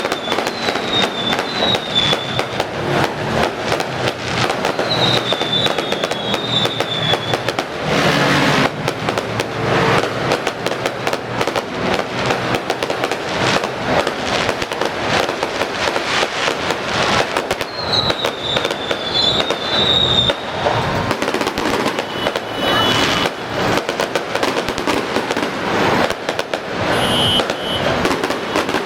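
Fireworks bursting and crackling in a rapid, continuous barrage, with high wavering whistles rising above it a few times.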